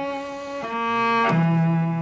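Cello bowed in separate strokes: three notes, each lower than the one before, each starting crisply with a whipping bow motion across the strings.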